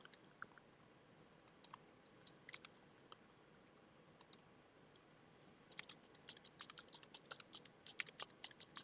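Faint, scattered clicks of a computer mouse and keys, then a quick run of keyboard typing starting about six seconds in.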